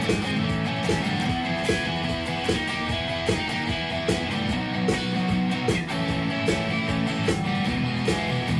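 Instrumental punk-blues music: guitar playing over a steady beat, with short sliding notes recurring throughout.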